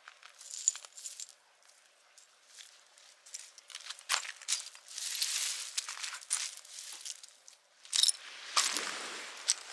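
Irregular light clicks, clinks and rustles of camping gear being handled. A longer, fuller scraping rustle comes about eight to nine seconds in.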